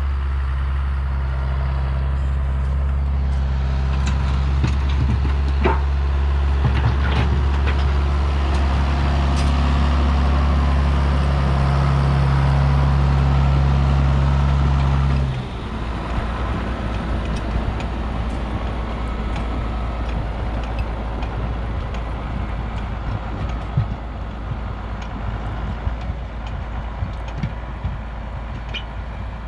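Tractor engine running steadily under load, likely a loader tractor scooping snow out of feed bunks and pushing a path. About halfway through, the strong steady hum drops off suddenly to a quieter, rougher rumble.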